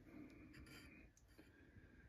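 Near silence: room tone with a few faint clicks.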